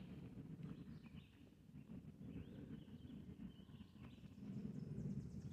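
Faint birds chirping in woodland, short scattered calls with a quick high trill near the end, over a low uneven rumble of movement.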